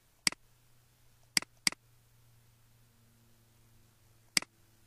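Computer mouse button clicking four times: once at the start, a quick pair about a second and a half in, and once more near the end, over a faint low hum.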